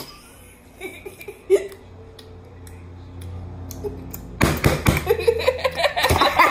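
Faint crunching of the One Chip Challenge's hot-pepper tortilla chip being bitten and chewed. About four and a half seconds in, loud laughter breaks out over a run of sharp knocks and clatter.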